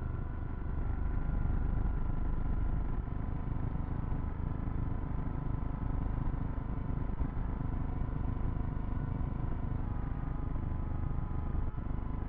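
Hubsan X4 H107C mini quadcopter's motors and propellers buzzing steadily in flight, picked up by its onboard camera, with a dense low rumble under the whine. The pitch wavers slightly near the end.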